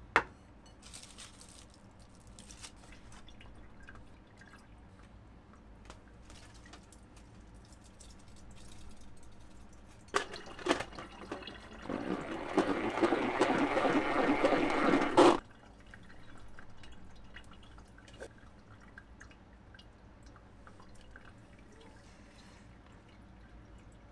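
Salad spinner whirling wet shredded cabbage: a loud rushing whir lasting about three seconds that cuts off suddenly, after a few clicks of the lid. A sharp knock of a ceramic plate set down on a wooden board at the start.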